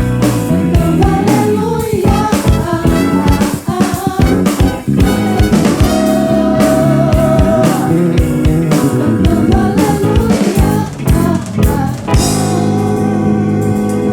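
Live band music with drum kit, bass, guitars and keyboards, and a lead melody that bends in pitch. About twelve seconds in, the drums stop and sustained keyboard chords are left ringing.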